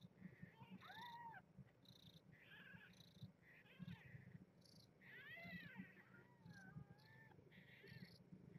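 Faint, high-pitched mews from newborn kittens while they nurse. There are about six short calls, each rising and then falling in pitch.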